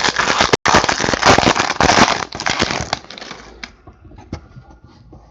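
Foil wrapper of a Topps Chrome baseball card pack crinkling and tearing as it is opened, with dense crackling for about three seconds, then quieter clicks as the cards are handled.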